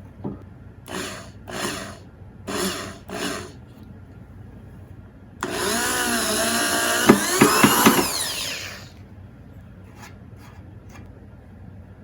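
A small electric power tool, drill-like, run in four short bursts, then a longer run of about three seconds whose pitch dips and rises, with a few sharp knocks near the end.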